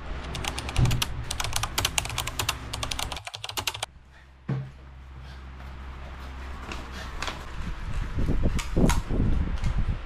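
Plastic sachets and wrapping paper being handled and sorted on a floor: a dense run of crisp crinkles and clicks for the first few seconds, then softer, scattered rustling.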